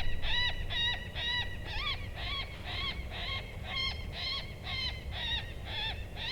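Electronic predator caller playing a prey distress sound: a high-pitched squealing cry repeated about twice a second.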